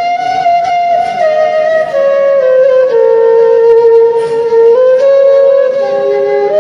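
Background music led by a flute, playing a slow melody of long held notes that step down and then climb again.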